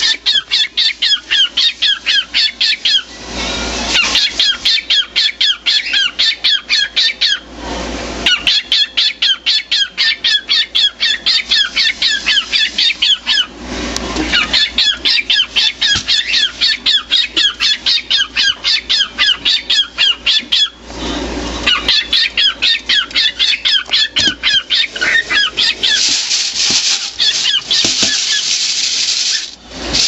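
Male cockatiel calling in a rapid, rhythmic string of short high chirps, about four or five a second. The chirps are broken every few seconds by a brief rush of noise.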